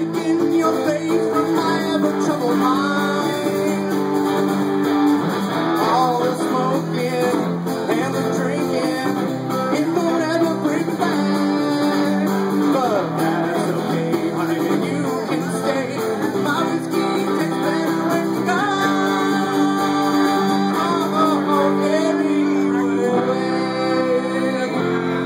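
An acoustic guitar and an electric guitar playing a strummed tune together, live.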